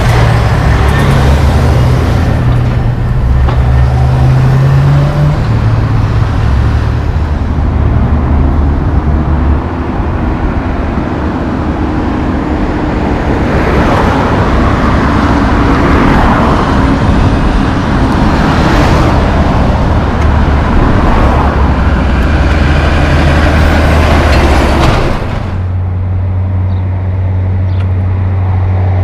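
Heavy diesel tow trucks running in road traffic: a deep engine drone that rises in pitch a few seconds in as a truck pulls away, vehicles passing close by in the middle, and a steady low engine drone near the end.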